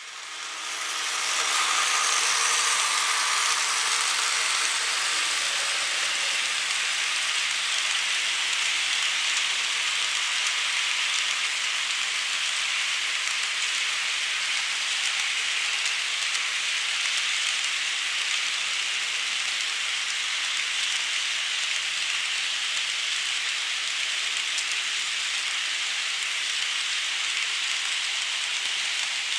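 Märklin model freight train of tank wagons rolling past on the track: a steady, hissing rattle of small metal wheels on the rails, fading in over the first second or two.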